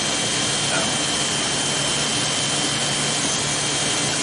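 Corded electric hair clippers running with a steady buzz, held against the side of the head to trim short hair.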